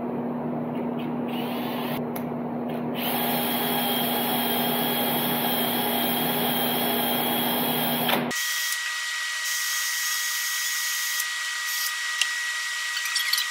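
Cordless drill spinning a wire cup brush: it runs freely at first, then about three seconds in it is pressed onto the cylinder head face to scrub the metal around the cut-off exhaust bolts clean before welding. It stops abruptly about eight seconds in, leaving a steady high hum.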